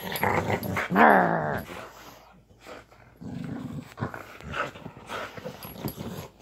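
Dog growling playfully during tug of war with a rope toy, with a loud, wavering vocal about a second in and lower growls after it.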